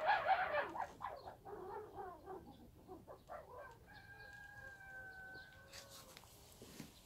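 A rooster crowing: a loud call at the start, then fainter short calls and a long held note.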